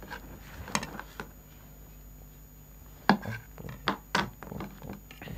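A knife clicking and scraping against a large aluminium baking pan as a pizza is cut and a slice is lifted out: a few scattered sharp clicks and knocks, the loudest about three seconds in.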